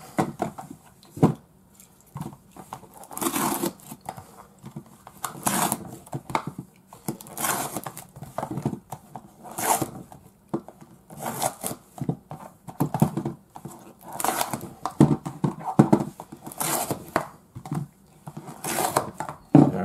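Small cardboard figure boxes being ripped open by hand: a series of short tearing rips, one every second or two.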